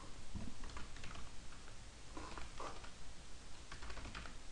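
Typing on a computer keyboard: irregular runs of keystrokes.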